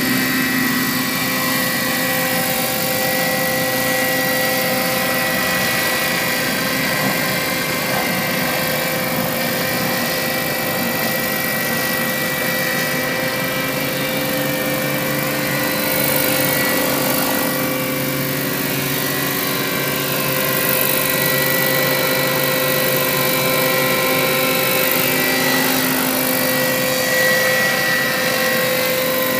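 Scale radio-controlled model helicopter flying, its drivetrain and rotors giving a steady whine whose pitch barely changes.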